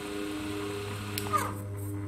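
Brushless motor belt-driving an automotive alternator, running with a steady hum and whine, too slow to spin the alternator fast enough to make voltage. About a second in there is a click and a short falling squeal.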